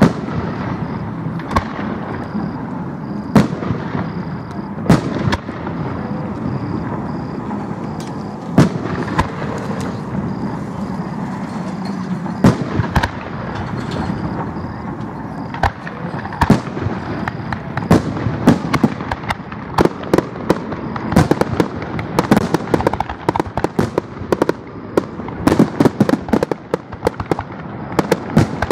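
Aerial fireworks shells bursting overhead, each one a sharp bang. The bangs come one every second or two at first, then grow much more frequent and crowded over the last ten seconds.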